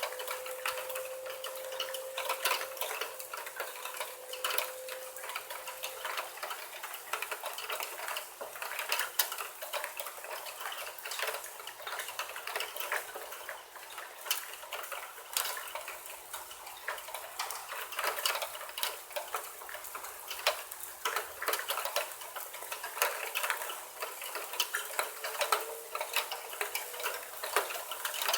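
Rain pattering and dripping in roof gutters: a dense, irregular run of small ticks and splashes over a steady wash of rainfall.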